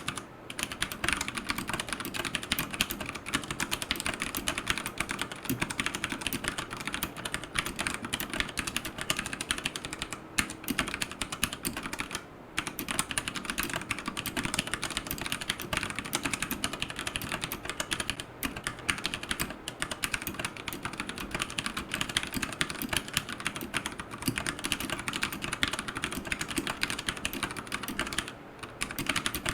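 Fast, continuous typing on a Royal Kludge RK100 mechanical keyboard with tactile brown switches and AKKO clear keycaps: a dense stream of key clacks with only a few brief pauses.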